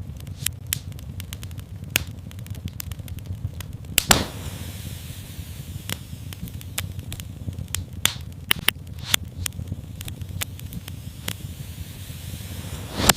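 Wood fire in a fireplace crackling, with many small irregular pops over a steady low rumble of the flames. A sharper, louder pop comes about four seconds in and another near the end.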